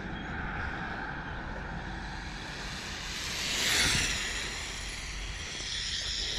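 A 1/18 Bezgar HM181 RC car's 3650 brushless motor whining at speed down the road, swelling to its loudest just before four seconds in, with a thin high whine after, over wind on the microphone.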